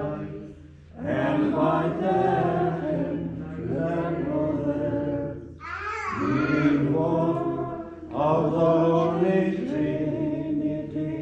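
Church choir chanting a liturgical hymn in phrases a few seconds long, with brief pauses for breath. A low note is held steadily beneath the melody.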